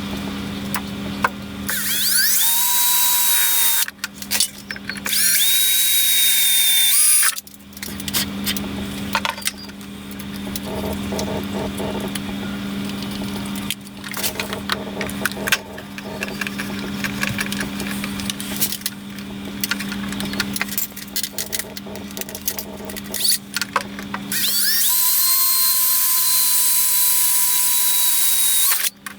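Electric drill running in three spells, each spinning up with a rising whine and then holding a steady pitch for a couple of seconds, with clicks and handling knocks in between, as a switch box is fixed to a lathe's side.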